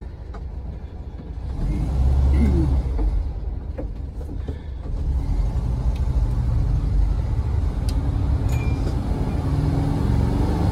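Vehicle engine and road noise heard inside the cabin while driving: a low rumble that swells about two seconds in, eases off around four seconds, then builds again and holds.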